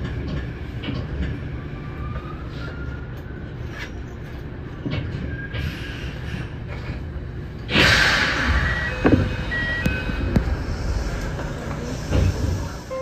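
Kintetsu 6820-series electric train standing at the terminal platform: a steady low hum with scattered clunks and clicks, then a sudden loud hiss of air about eight seconds in that slowly dies away, with a few short high tones.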